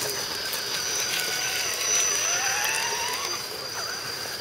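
Electric motor and gear drive of 1:10 scale RC crawler trucks whining as they crawl. The whine rises in pitch through the middle as the throttle opens, with scattered light clicks.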